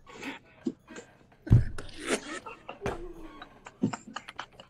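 Men laughing quietly in short breathy laughs, with a sudden low thump about a second and a half in.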